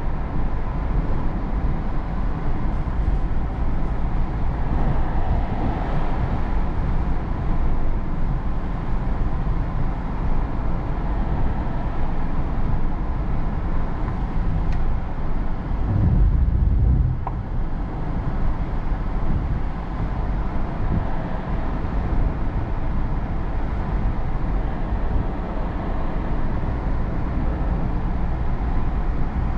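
In-cabin driving noise of a 2022 Hyundai Tucson with a 1.6-litre engine cruising on a paved road: steady tyre and road noise with engine hum. About sixteen seconds in, a louder low rumble lasts for about a second.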